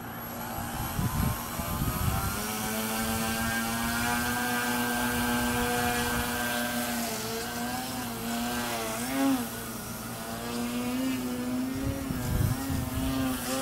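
Yak 55 foam RC airplane's motor and propeller whining in flight. The pitch climbs a couple of seconds in, holds steady, then wavers up and down as the plane manoeuvres.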